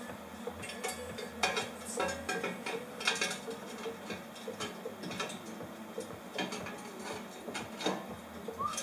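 Metal exhaust pipe bends clinking and knocking against each other as they are pushed together and trial-fitted by hand: irregular sharp metallic clicks, some in quick clusters.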